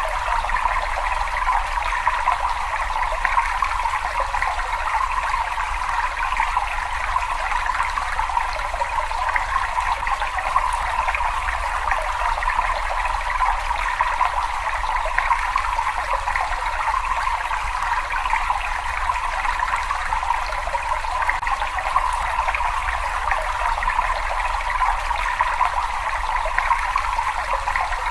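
Water running and trickling in a cave, a steady, even rush that does not change, with a low rumble underneath.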